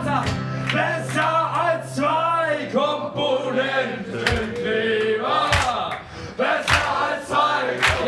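Audience singing along in chorus with the performers, clapping a steady beat about twice a second. An acoustic guitar sounds under it for the first few seconds.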